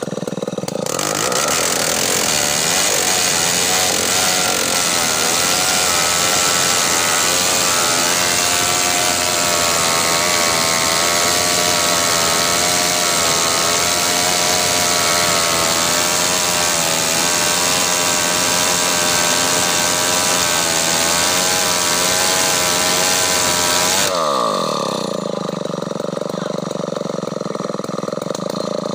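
Chainsaw revving up about a second in and running at full throttle, its pitch wavering under load as it cuts into a large bengkirai log for a bit over 20 seconds. Near the end the revs fall sharply and the saw drops back to idle.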